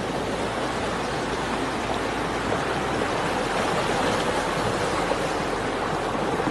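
Steady rush of fast-flowing floodwater running through a wadi in spate.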